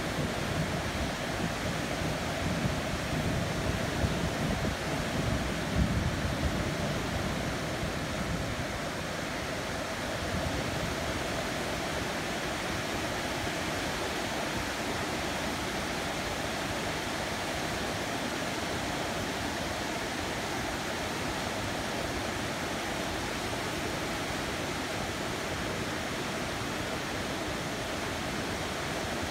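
Continuous heavy rain, a steady even hiss. A low rumble runs underneath for the first several seconds and dies away by about eight seconds in.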